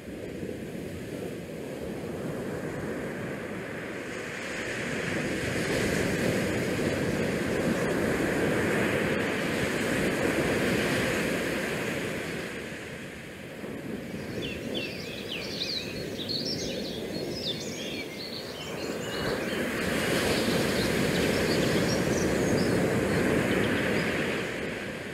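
Wind rushing over an open ship's deck and buffeting a GoPro's microphone, with the sea's noise beneath, swelling and easing in gusts. About halfway through, a scatter of brief high chirps or squeaks sounds over it for a few seconds.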